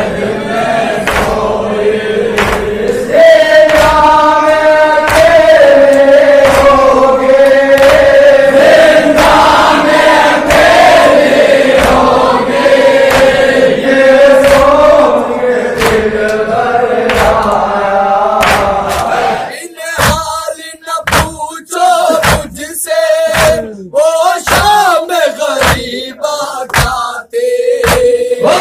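A group of men chanting a nauha, an Urdu Shia mourning lament, in unison over a steady beat of hand-on-chest matam strikes. About two-thirds of the way in the full chorus drops away and the chant goes on in shorter, thinner phrases over the beats.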